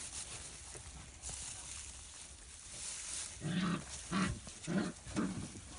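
A puppy giving four short, low play growls in a row about three and a half seconds in, over a faint rustling of straw.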